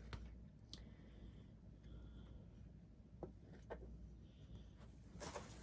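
Faint handling noise: light rubbing with a few soft clicks as the boxed ceiling-fan blades and their packaging are moved about.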